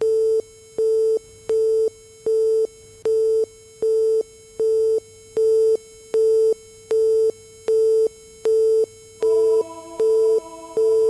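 Electronic soundtrack music: a single synthesizer tone beeping on and off at an even pace, a little more than once a second, like a busy signal. About nine seconds in, further tones join it to form a chord.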